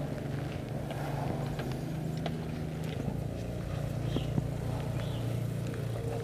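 A motor running steadily, a low even drone, with a few faint ticks and clicks over it.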